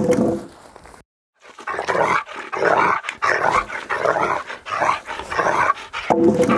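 A dog vocalising: a sudden loud sound at the start, a short break about a second in, then several seconds of rough, repeated pulses of sound.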